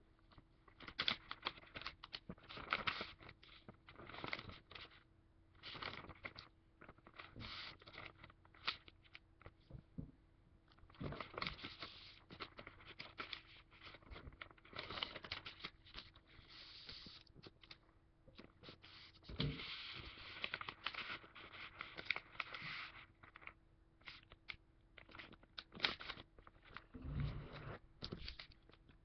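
Origami paper being folded and creased by hand on a tabletop: irregular crinkling, rustling and scraping strokes. A dull thump comes near the end.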